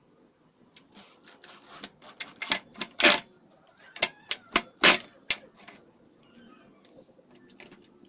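Corded electric drill boring into a small wooden block: a run of sharp, irregular clacks and short bursts, loudest about three and five seconds in, stopping near six seconds.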